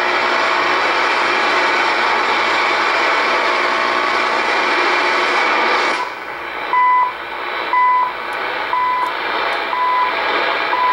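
Shortwave static and hiss from an Icom IC-R8500 receiver in AM mode as it is tuned across the 3 MHz band. About six seconds in, it settles on the CHU Canada time signal on 3.330 MHz: short high beeps, one each second, over the noise.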